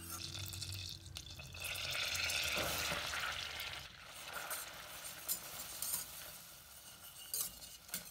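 Wire whisk stirring hot melted butter in a stainless steel pot, with a sizzling hiss that swells about two to three seconds in as flour goes in. The whisk wires then click against the pot a few times as the butter and flour are worked into a roux for béchamel sauce.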